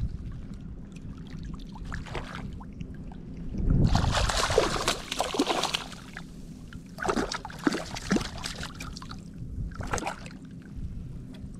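Hooked speckled trout thrashing and splashing at the water surface as it is reeled in, in irregular bursts: the longest and loudest starts about four seconds in and lasts about two seconds, with more splashing about seven to eight seconds in and again around ten seconds, over a steady low background rumble.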